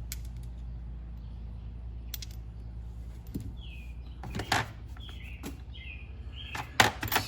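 Small metal hand tools and parts clicking and clinking as they are handled and set down, with a quick run of clicks near the end, over a steady low hum.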